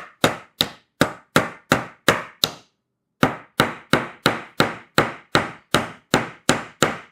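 Hammer driving small nails into a wooden beehive frame, about three sharp strikes a second, with a short pause about three seconds in.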